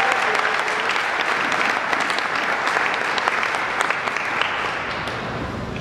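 Audience applauding, the clapping dying down over the last second or two.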